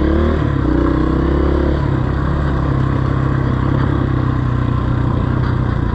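Honda CRF230F dirt bike's single-cylinder four-stroke engine running at moderate revs, then dropping to a steady low speed about two seconds in.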